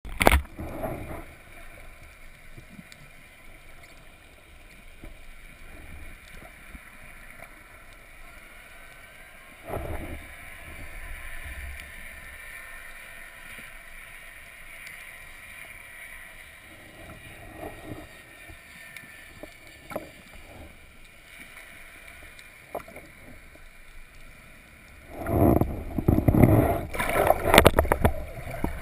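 Underwater sound picked up by an action camera in its waterproof housing: a steady faint wash of water noise, with a brief swell about ten seconds in. Near the end come several seconds of louder rushing and knocking sounds.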